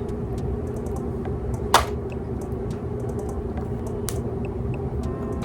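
Faint scattered ticks and small clicks over a steady low hum, with a sharper click a little under two seconds in and another about four seconds in.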